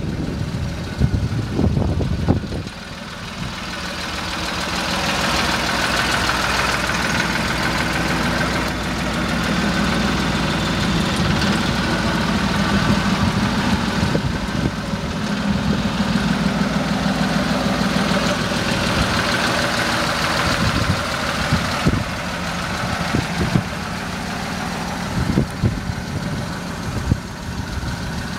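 Suzuki Carry DD51T kei truck's small three-cylinder engine idling steadily, growing louder a few seconds in and easing off again after about twenty seconds. A few low bumps sound near the start.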